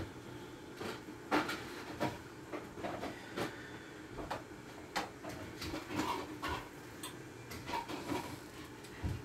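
Cooking clatter: a utensil knocking and scraping against a frying pan of perogies, with irregular clicks and knocks.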